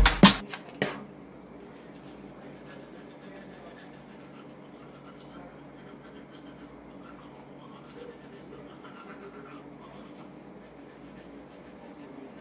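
Loud music with a heavy beat breaks off within the first second. Then comes faint, steady scrubbing of a manual toothbrush on teeth.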